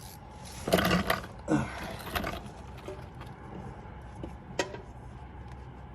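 Hand tools working the oil-pan drain plug as it is threaded back in and snugged down: mechanical clicks and clatter, busiest in the first couple of seconds, with one sharp click a little past the middle.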